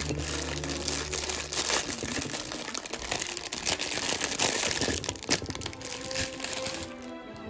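Plastic produce bag crinkling and rustling as radishes are shaken out of it onto a plate, with a sharper knock just past five seconds in. The crinkling stops about seven seconds in.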